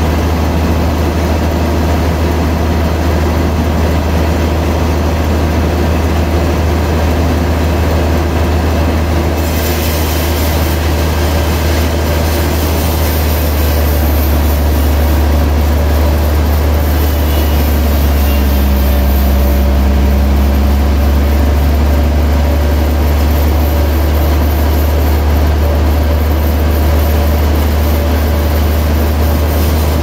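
Large band saw running steadily with a loud, deep hum as its blade cuts a wide wooden slab; about ten seconds in, a higher hiss joins the hum.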